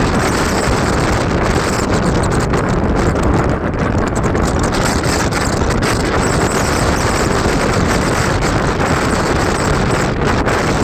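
Suburban electric local train running at speed, a steady rush of wheel and track noise mixed with wind buffeting the microphone.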